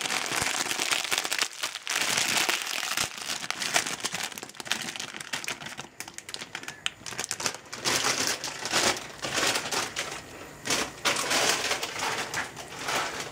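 Plastic bag of marshmallows crinkling irregularly as it is handled and the marshmallows are tipped out of it.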